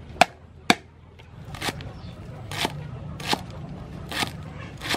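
Cleaver chopping on a wooden chopping block: two sharp knocks near the start, then a steady chop about every second through crisp green vegetable stems.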